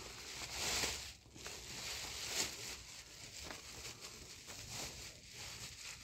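Plastic sheeting rustling and crinkling as it is handled, loudest about a second in.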